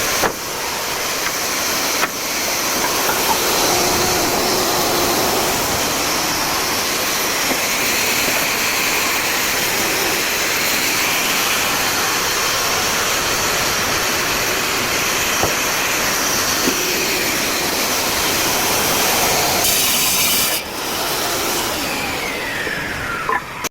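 Power tool working wood, a loud steady noise that runs on with only brief dips about two seconds in and again near the end.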